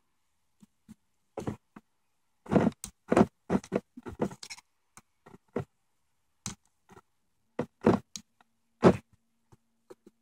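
Irregular clicks, knocks and rustles of a knife blade and fingers working a plastic GM E38 PCM harness connector, prying back the piece that locks its pins, in a cluster a few seconds in and then single knocks.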